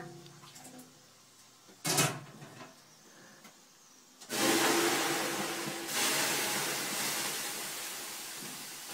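Water thrown onto the hot stones of a sauna stove, hissing into steam: a sudden loud hiss about four seconds in, a second surge a moment later, then a slow fade. A short sharp sound comes about two seconds in.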